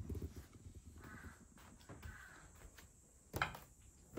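Soft footsteps and handling thumps on a tatami floor, with two faint distant crow caws about a second apart, and a sharp knock about three and a half seconds in.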